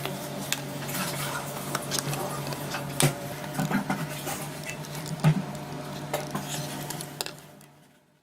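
Small hard objects, such as tools and screws, being handled: scattered clicks and clinks over a steady low hum, fading out near the end.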